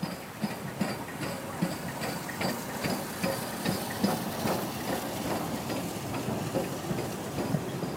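LMS 'Crab' 2-6-0 steam locomotive 13065 passing close at low speed under steam, its exhaust beating in an even rhythm of about two to three beats a second over a hiss of steam.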